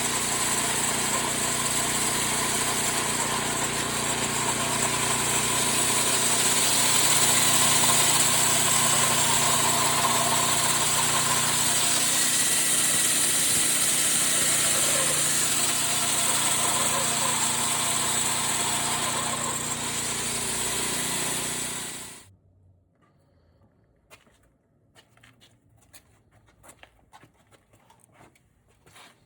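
Homemade bandsaw mill running: a steady, loud mechanical noise with a strong high hiss and several steady hums. It cuts off abruptly about 22 seconds in, leaving only faint small clicks and taps.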